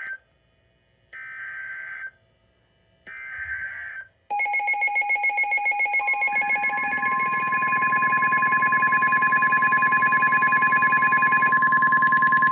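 Two NOAA Weather Radio SAME digital header bursts, each a second-long buzz of data noise, a second apart. From about four seconds in, a weather radio's pulsing electronic alarm sounds. About six seconds in, the steady weather radio warning alarm tone joins it, announcing an incoming severe thunderstorm warning.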